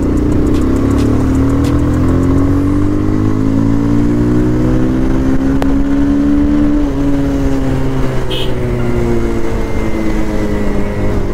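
Bajaj Pulsar 220F's single-cylinder engine running under way, its note rising slowly as the bike picks up speed, then dropping suddenly about seven seconds in and falling gently after that.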